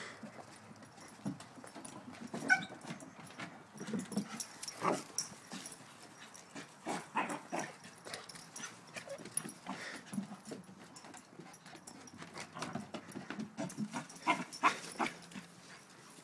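Dogs at play, giving short yips and whines now and then among brief knocks and rustles.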